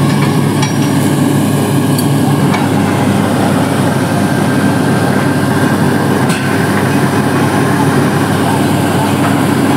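Truck-mounted borewell drilling rig's diesel engine and air compressor running steadily, a loud, even rumble with a hiss over it.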